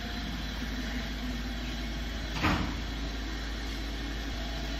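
Steady low background hum, with a single sharp knock about halfway through.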